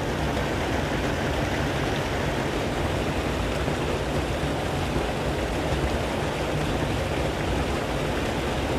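Water spilling over a flow-over dam's weir and churning into white water below, a steady rushing that does not change.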